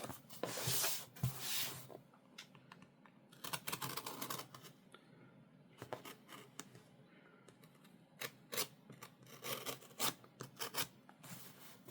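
A blade slitting the packing tape on a cardboard box: a few scratchy cutting strokes along the tape, then scattered light clicks and scrapes on the cardboard near the end.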